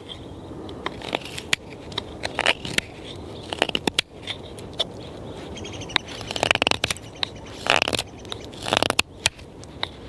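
Small handmade carbon-steel bushcraft knife carving shavings off a stick of wood: a string of short scraping, crackling cuts at irregular intervals, the strongest in the second half. The keen edge bites into the wood easily.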